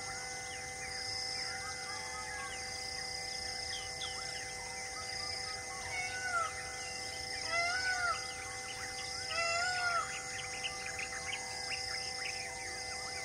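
Wild birds calling in scrub forest: a busy chorus of short chirps, with three louder arched calls spaced about a second and a half apart in the middle. Under them run steady unchanging high tones and an on-off high buzzing.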